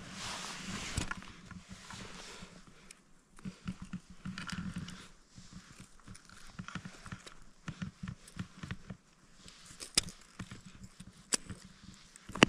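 Footsteps crunching in snow, with irregular clicks and scrapes.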